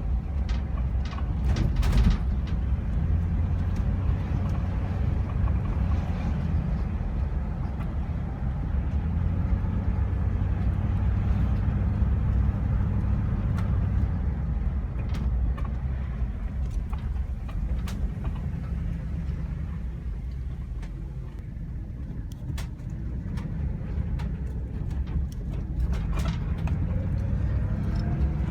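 Van driving on the road, heard from inside the cab: a steady low engine and road rumble that eases off briefly about three quarters of the way through.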